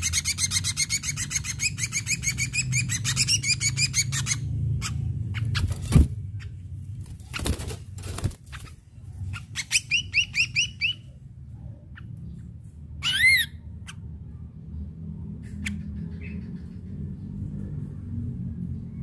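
Ashy drongo singing: a fast run of repeated rising chattering notes for about four seconds, a shorter run around ten seconds in, and a loud gliding whistle a few seconds later. A single sharp knock about six seconds in is the loudest moment, and a low steady rumble sits under it all.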